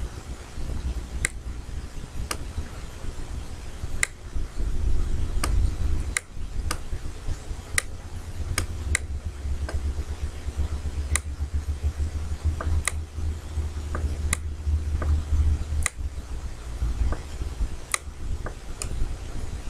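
Computer mouse clicking, about twenty sharp single clicks at irregular intervals, over a steady low rumble.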